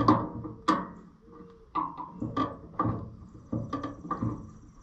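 A series of short metallic clinks and knocks at uneven spacing, a wrench and hand tools working on terminals behind the tractor's dash panel.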